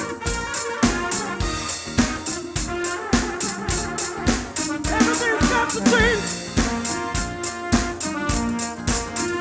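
Up-tempo worship music driven by a drum kit playing a fast, steady beat of about three or four hits a second, under sustained keyboard and bass notes.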